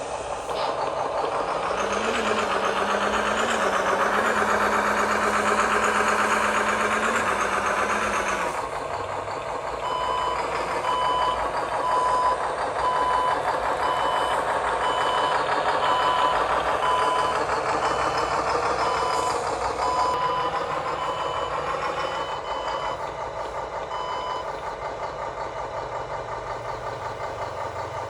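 Radio-controlled construction truck's engine sound running and rising in pitch a couple of times, then cutting off suddenly about eight seconds in. After that a reversing beeper sounds about once a second for some fifteen seconds over a steady lower machine noise.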